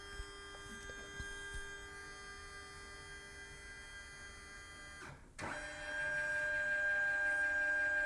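Brother MFC-J1205W flatbed scanner's carriage motor whining steadily as the scan head travels under the glass, scanning at 200 dpi. It cuts out for a moment about five seconds in, then runs on louder.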